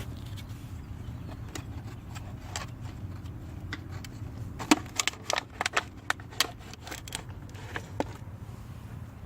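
Scattered sharp clicks and taps of hand and tool work at the lawnmower's oil drain plug as it is backed out, over a steady low hum. The clicks cluster in the middle.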